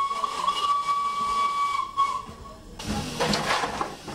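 Steam whistle of Flying Scotsman, the LNER A3 Pacific locomotive, sounding one long steady note that stops about two and a half seconds in. A rush of steam hissing follows near the end.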